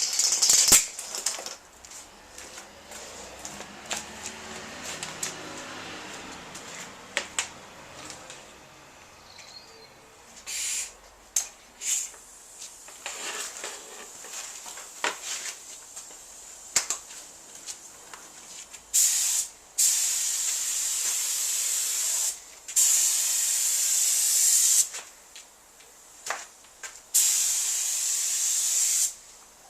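Paint spray gun hissing as a light tack coat goes on. There are short squirts at first, then several longer passes of two to three seconds each.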